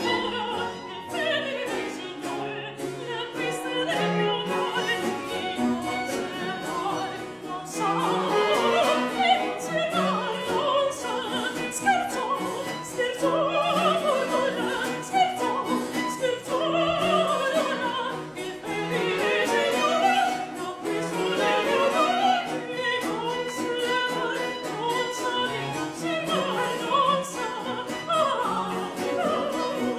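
A woman singing a baroque opera aria, her voice rising and falling on long notes with vibrato, accompanied by a small string orchestra.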